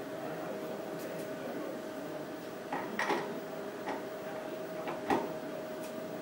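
CNC milling machine humming steadily while it stands by, with a few short metallic clicks and knocks as an operator works at the machine; the loudest knock comes about five seconds in.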